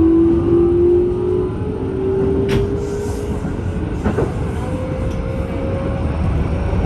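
Traction motors of Keikyu train set 1307 whining under power, one strong tone climbing slowly in pitch as the train picks up speed, over a rumbling running noise with two sharp clicks partway through. The motor sound is abnormal and very loud, not the normal sound of this set; the uploader suspects a loud Mitsubishi motor transplanted from an 8-car set.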